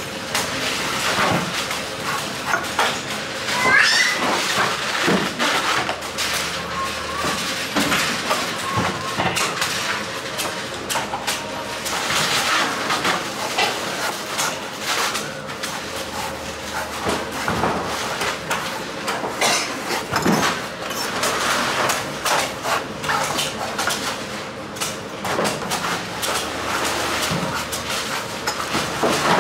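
Irregular sharp knocks and chops of a knife on coconuts, amid market bustle and some voices. A short rising squeal sounds about four seconds in.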